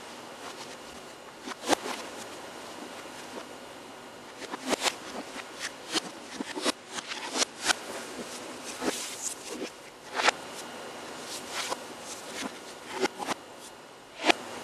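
Irregular sharp taps and scuffs of feet stepping and shifting on the floor, with a few louder knocks, over a steady background hiss.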